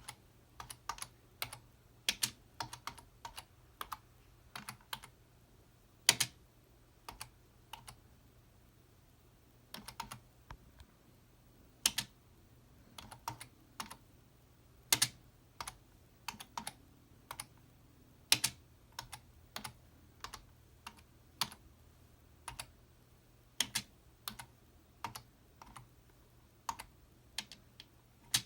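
Computer keyboard keys struck one at a time with a single typing pointer on a prosthetic hand: slow, irregular clicks with uneven pauses between them, some strikes much louder than others.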